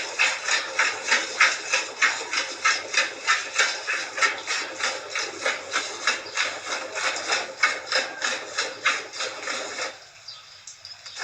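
Hand milking of a water buffalo: jets of milk squirting into a pail in a steady rhythm, about four squirts a second, stopping about ten seconds in.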